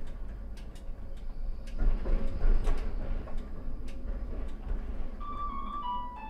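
Vario LF2+ low-floor tram running, heard from the driver's cab: a steady low rumble of wheels on rail with scattered sharp clicks, and a louder rolling noise about two seconds in. Near the end a few whining tones step down in pitch.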